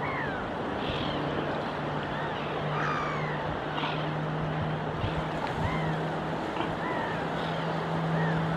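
Gulls calling over the sea, short arched cries about once a second, over a steady wash of wind and surf. A steady low hum runs underneath from about a second in.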